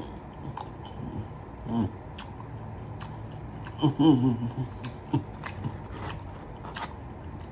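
A person eating a hot chicken tender: chewing and crunching with small clicks and rustles from handling the food. Two short murmured vocal sounds, one a little under two seconds in and one about four seconds in.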